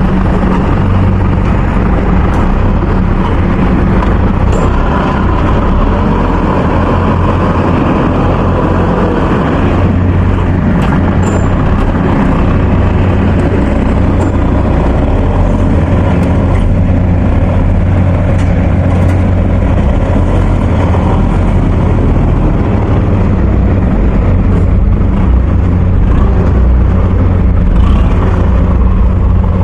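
Rice combine harvester running steadily close by: a loud, constant engine drone that does not change throughout.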